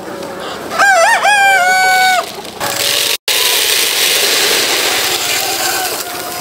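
A rooster crowing once, about a second in: a few short rising notes and then a long held final note. After a short break in the sound, a steady hiss fills the rest.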